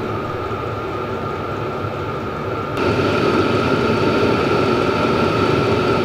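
Vevor diesel heater running steadily: an even whir of its fan and burner with a steady high tone. About three seconds in, the sound jumps louder and brighter.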